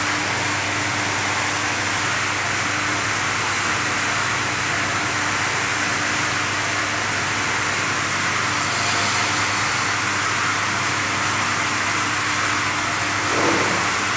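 Motor-driven stainless-steel sugar-coating pan running, a steady hum under a constant hiss as the nakul dana sugar balls tumble inside. A short louder sound comes near the end.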